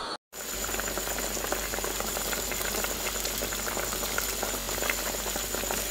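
Thick coconut fish curry boiling vigorously in an earthenware pot: a steady, dense bubbling and popping. It starts just after a brief silence, with a faint steady high whine underneath.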